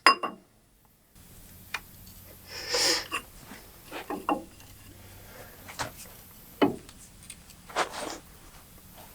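A large pipe wrench being set on a hydraulic cylinder's end cap: a few faint metal knocks and clicks, with a brief scrape about three seconds in.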